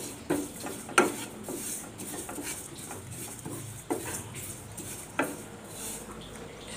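Wooden spatula stirring and scraping sesame seeds around a dry black pan, a continuous rasping shuffle of seeds on the pan surface. A few sharper knocks of the spatula against the pan come about one, four and five seconds in. The seeds are being dry-roasted over a low flame until they turn brown.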